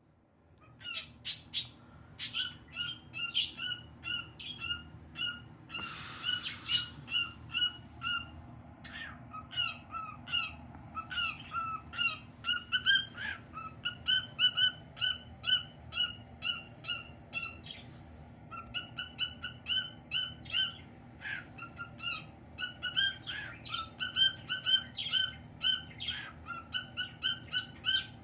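Cockatiel whistling a long run of short, repeated chirping notes, about two or three a second, with a few brief pauses.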